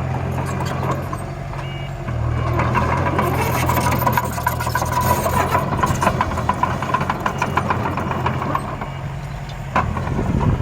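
Diesel-style engine rumble of miniature remote-controlled construction machines, dump trucks and a bulldozer, with a faint steady motor whine. Rattling clicks of soil and small stones being moved come through in the middle.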